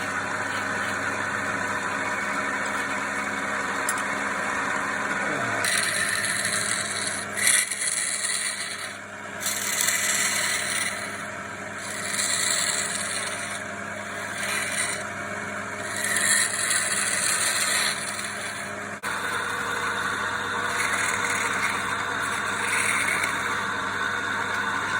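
Wood lathe running with a steady motor hum while a tool scrapes against the spinning wood in repeated short strokes. The sound changes abruptly about six and nineteen seconds in.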